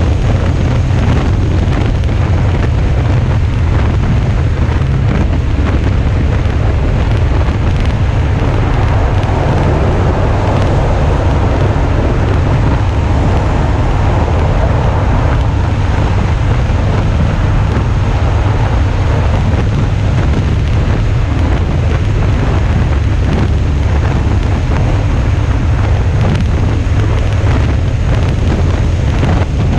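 Steady wind buffeting the microphone while riding a Suzuki V-Strom 650 at road speed, with the motorcycle's 645 cc V-twin engine running underneath.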